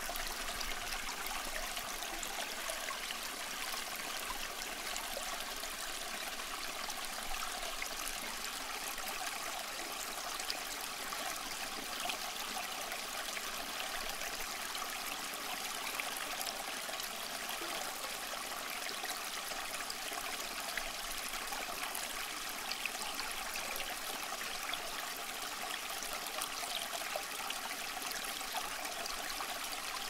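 Homemade tabletop rain fountain running: thin streams of water falling from its top ledge onto ribbed cement steps and into the basin, with a steady trickling splash and small droplet ticks.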